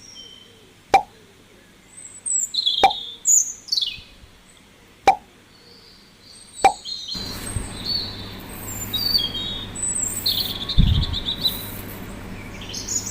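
Single water-drop plops, one every couple of seconds, over a background of birds chirping. After about seven seconds the plops stop and a steadier outdoor hiss takes over, with a low thump near eleven seconds.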